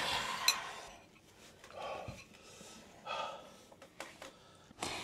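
A person breathing hard in three heavy, breathy gusts, the first the loudest and longest, reacting to the chilli burn of spicy noodles.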